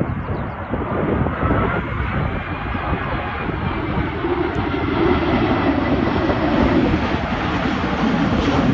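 Airbus A380 jet engines running, a faint whine slowly rising and falling, heard through heavy wind buffeting on the microphone.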